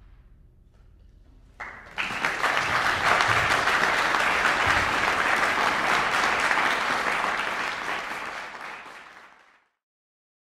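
Audience applauding, starting suddenly about two seconds in after a moment of quiet and fading out near the end.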